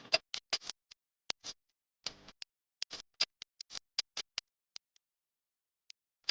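Irregular sharp clicks and light taps, several a second at first, then more spread out, stopping about five seconds in.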